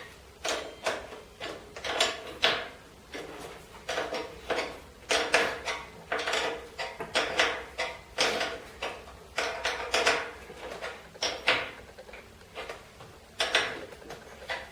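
A 15 mm open-end wrench tightening the front axle nuts of an eZip 1000 electric scooter: a run of short metallic clicks and scrapes, about one or two a second, irregular, as the wrench turns the nut and is refitted on it.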